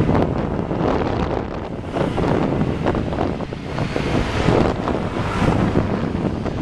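Wind buffeting a moving camera's microphone, loud and gusty, over the noise of road traffic.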